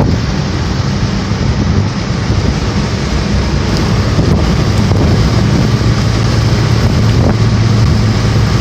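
Hurricane wind buffeting the microphone: a loud, steady rumble with hiss over it and no letup.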